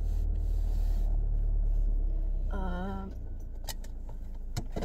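Low rumble of a car driving, heard inside the cabin, easing off about three seconds in. A brief wavering voice sound comes near the middle, and a few sharp clicks and knocks follow near the end.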